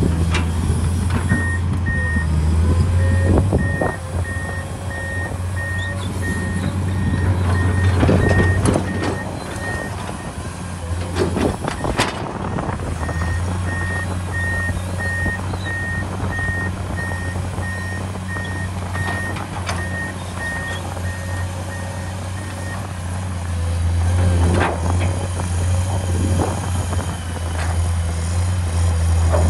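Komatsu PC210 excavator's six-cylinder diesel engine running with a steady low hum that swells under load. A reversing-type warning alarm beeps evenly for about eight seconds, pauses, then beeps again for about nine seconds. Now and then the bucket knocks and scrapes in the soil.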